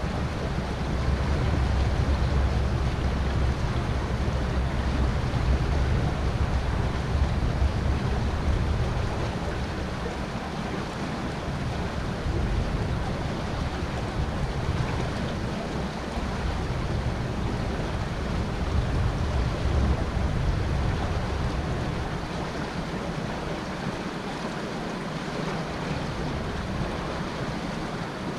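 River water flowing past the bank, with gusts of wind on the microphone making a low rumble that eases off in the second half.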